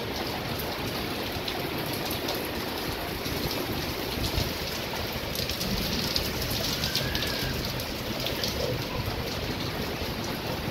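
Heavy rain falling: a steady hiss with many single drops striking close by.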